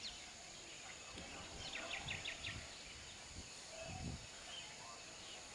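Outdoor ambience: a small bird gives a quick run of about five high chirps a little under halfway in, over a steady high insect-like hiss, with a few soft low rumbles.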